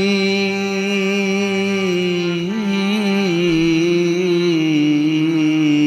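Sikh kirtan: a singer holds one long sustained note that wavers slightly and steps down a little in pitch about halfway through.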